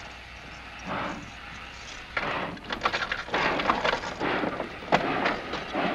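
Key worked in the lock of a wooden train compartment door, then the door and its latch rattling. From about two seconds in comes a dense run of clicks and knocks.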